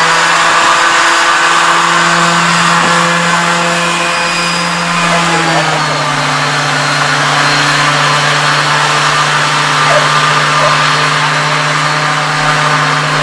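Hov Pod personal hovercraft's engine and ducted fan running loud and steady at high power, dropping a little in pitch about five and a half seconds in. The uploader's caption says the craft can't hover properly: it is labouring to get over hump.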